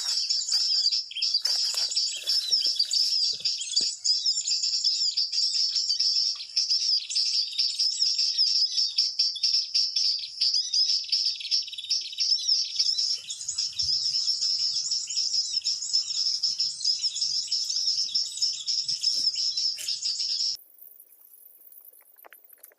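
Perenjak lumut birdsong: a dense, rapid, continuous run of high chirps that cuts off suddenly about twenty seconds in.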